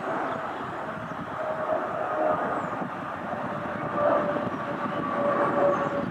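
Boeing 777 twin-jet flying overhead: a steady jet-engine rumble with a droning tone that slowly falls in pitch, swelling a little about four seconds in.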